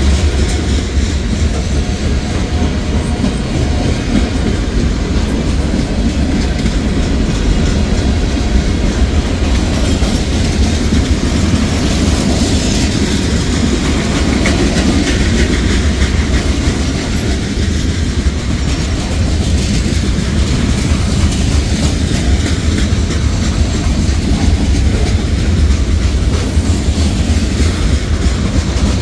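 Freight cars of a Norfolk Southern manifest train (covered hoppers, boxcars and lumber-loaded centerbeam flatcars) rolling steadily past at close range: the loud, even rumble of steel wheels on the rails.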